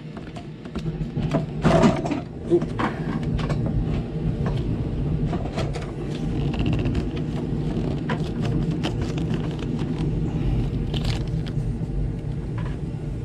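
Hands rustling a plastic bag and working clear vinyl tubing onto a plastic barb fitting: scattered clicks and rustles, the loudest knocks about two seconds in. Under them a steady low mechanical hum sets in about a second in and holds.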